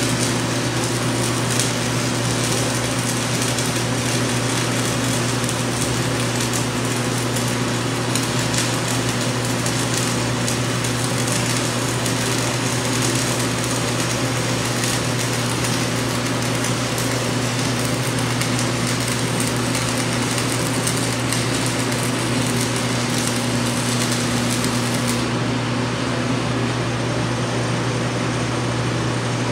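DC stick-welding arc from a 1/8-inch E7014 electrode at 90 amps, crackling steadily like frying bacon: the sound of a good, stable weld. The arc stops near the end, leaving a ventilation fan's steady hum underneath.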